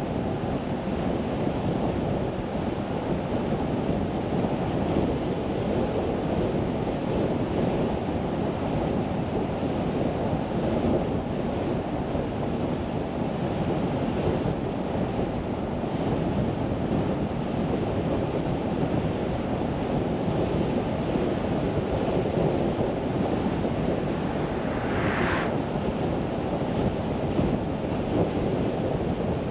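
Steady road and wind noise from a car driving along, with a brief higher hiss near the end.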